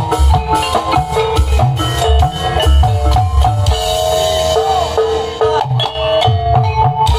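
Live jaranan music through a PA system: heavy drum beats under a keyboard and percussion melody. About four seconds in the drums thin out and a held, wavering tone carries on, and the beat comes back near the end.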